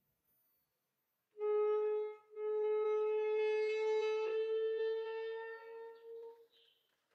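A wind instrument playing a short note and then one long held note at a steady pitch, lasting about four seconds.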